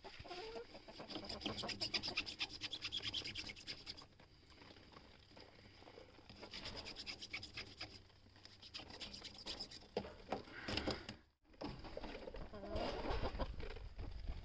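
Old caulking sealant being cut and scraped off a water container: bouts of fast, rapid scraping strokes, with a short break about three-quarters of the way through.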